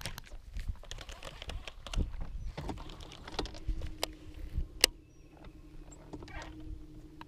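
Quick irregular clicking and rattling from a fishing rod and baitcasting reel being handled. From about three seconds in, a steady low electric hum joins it: the boat's trolling motor running. There is one sharp click near five seconds in.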